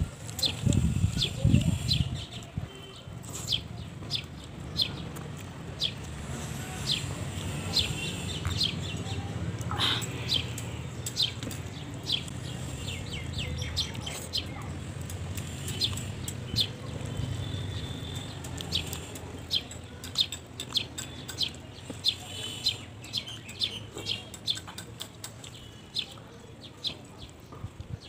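Small birds chirping in quick, irregular calls, with now and then a longer rising or curving call, over a steady low background rumble.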